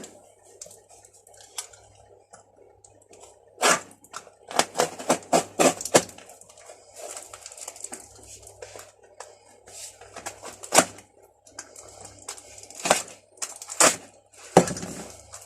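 Loose metal spanners clinking and knocking together as they are handled and sorted, with a quick flurry of clinks about four to six seconds in and single knocks near the end.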